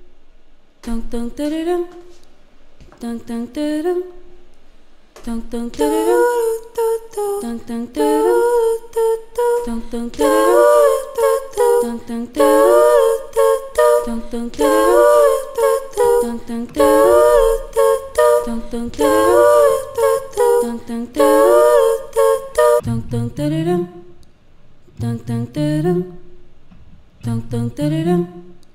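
A cappella vocal loop from a woman's voice layered on a Boss RC-300 loop station: a short rising phrase repeats about every two seconds, a higher sustained harmony layer joins about five seconds in and gets fuller, and near the end it drops away as a low bass vocal line comes in.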